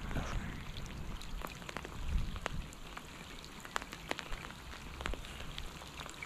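Rain falling on the river, with irregular sharp ticks of drops landing close by over a low rumble.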